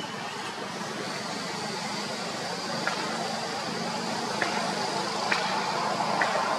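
Steady outdoor rumble and hiss of a passing vehicle that grows gradually louder, with a faint steady high whine and a few small clicks.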